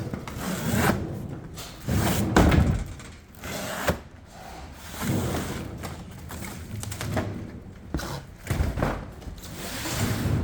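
Irregular knocks and thuds of hard parts being handled and set down, with handling noise between them.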